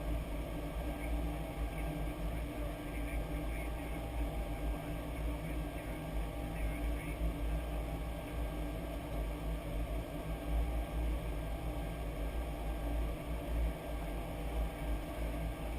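Steady flight-deck noise of a Boeing 737-800 on approach: a constant rush of air over a low rumble.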